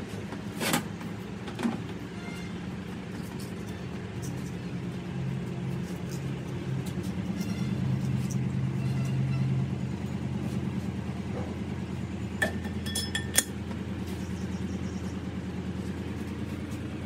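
Metal parts clinking a few times as tractor axle components are handled on a steel workbench, the sharpest near the start and about two-thirds of the way through. Under them a steady low machine hum runs the whole time.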